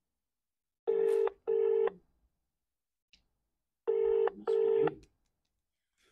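British telephone ringback tone heard over a phone on speaker: two double rings about three seconds apart, as the call rings out unanswered.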